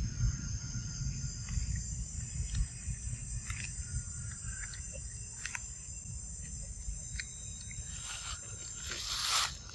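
Insects shrilling in a steady chorus of several high tones, over a low rumble. Scattered small clicks throughout and a brief loud rustle about nine seconds in.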